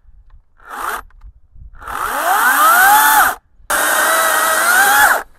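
Chainsaw revving up to full throttle: a short blip about a second in, then a rising whine that holds high, breaks off briefly and comes back steady for a second long run.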